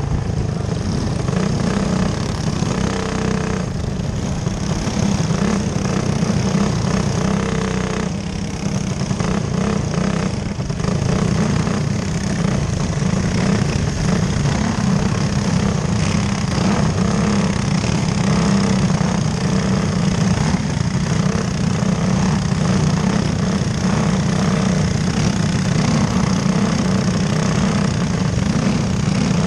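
A dirt racing kart's engine running, heard from on board, with the rattle of the chassis and wind noise. It eases briefly about eight seconds in, then pulls steadily again with other karts running close by.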